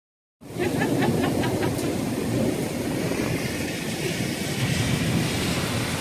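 Heavy rain pouring steadily in a thunderstorm downpour, a dense, even hiss with a deep rumbling undertone, starting about half a second in.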